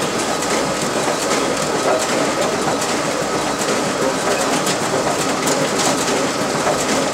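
RISO 9050 high-speed printer running a print job, feeding sheets through to its finisher: a steady mechanical whir with a quick, uneven patter of light clicks from the paper handling.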